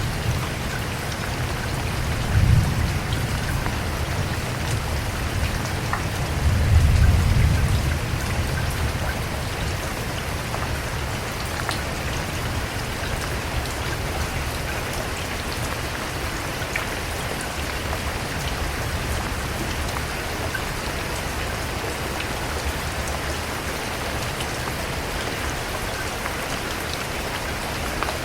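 Steady rain falling, with fine drops pattering throughout. Two short low rumbles rise out of it, about two and a half seconds in and again, longer and louder, around seven seconds in.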